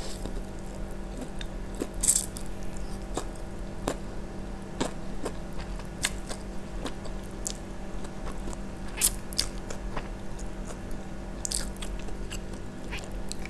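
Close-miked eating of fried instant noodles: slurping noodle strands and chewing, with many small wet mouth clicks. There are louder slurps about two seconds in, near nine seconds and near eleven and a half seconds.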